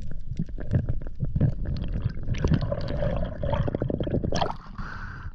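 Muffled underwater gurgling and sloshing with many small clicks, as water moves around a camera held underwater, with a brief louder rush of water near the end.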